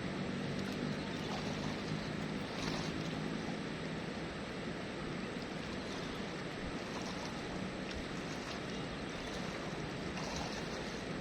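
Steady rushing of flowing river water, with a faint low hum in the first few seconds.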